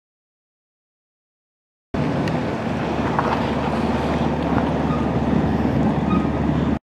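About two seconds of dead silence, then steady wind noise buffeting the microphone, a dense low rumble with hiss, running until it cuts off just before the end.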